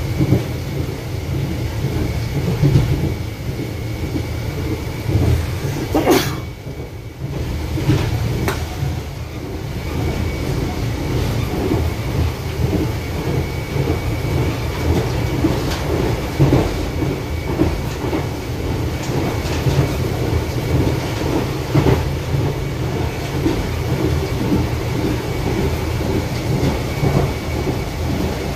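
Dadar–Madgaon Janshatabdi passenger train running, heard from aboard: a steady low rumble of wheels on the rails with scattered knocks from the track. A sharp crack comes about six seconds in, and the noise dips briefly right after it.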